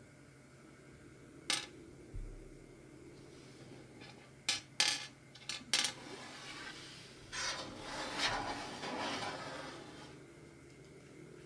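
Small hard fingerboard parts clicking and clattering as they are handled: a single sharp click, then a quick cluster of clicks, then a longer rattle.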